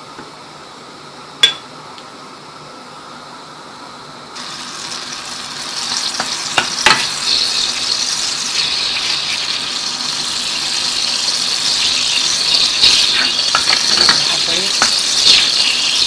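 Ghee melting in a pan on the stove, beginning to sizzle about four seconds in and growing steadily louder as the fat gets hot. A single sharp click comes about a second and a half in.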